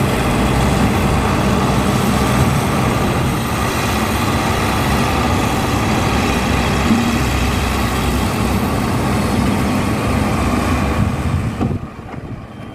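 Heavy diesel engine running steadily, then fading away near the end.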